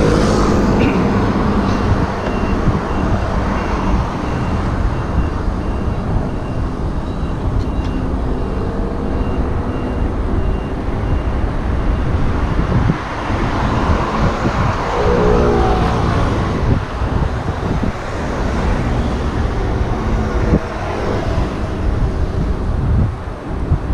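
Road traffic passing beside a moving bicycle, under a steady rumble of wind buffeting the camera microphone. A brief pitched hum rises out of the noise about fifteen seconds in.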